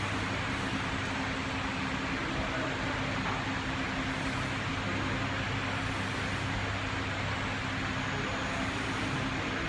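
Steady machinery hum with an even rushing air noise, holding level throughout.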